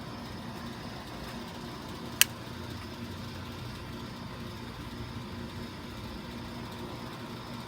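Steady low background hum with a single sharp click about two seconds in.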